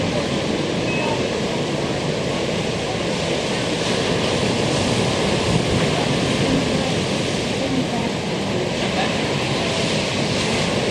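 Ocean surf breaking and washing on a sandy beach: a steady rush of noise with wind on the microphone.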